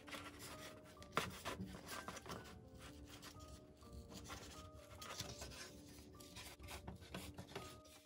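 Pieces of thin grey cardboard being handled and rubbed together, with irregular papery scrapes and taps and a sharper tap about a second in. Soft instrumental music plays underneath.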